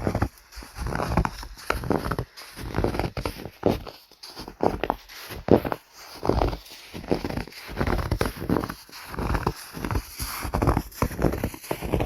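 Footsteps crunching in snow at a steady walking pace, one crunch a little more often than once a second.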